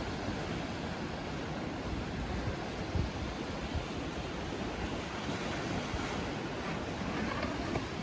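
Wind and surf at sea, a steady rushing noise, with gusts buffeting the microphone in low rumbles.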